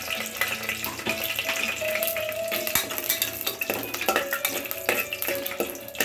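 Food frying in a pan with a utensil stirring and clicking against it, over background music with held notes.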